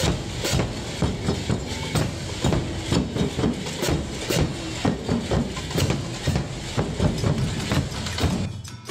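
Bombos, the big Galician bass drums of a carnival folión, beaten together in a loud, dense beat of many strokes a second. The drumming drops away near the end.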